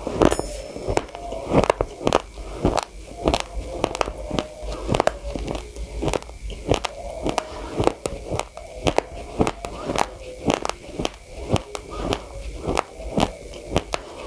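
Close-miked chewing of a mouthful of raw, uncooked rice: hard grains cracking between the teeth in sharp crunches, about two a second.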